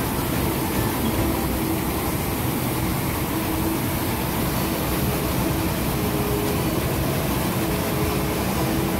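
Sugar mill machinery running: a steady, dense mechanical din with a few faint constant hums through it.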